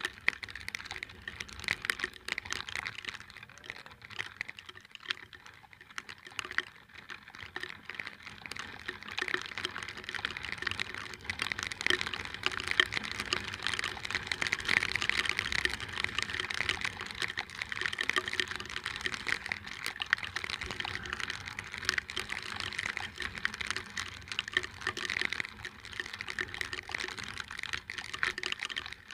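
Rain pattering on the microphone: a dense, steady crackle of drops that grows louder through the middle stretch.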